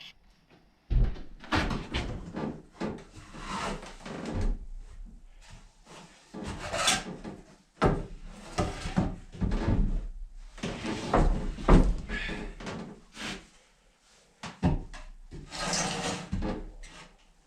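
Wooden pieces being handled and set together: irregular knocks and scrapes of wood against wood, with a few louder thumps as pieces are put down.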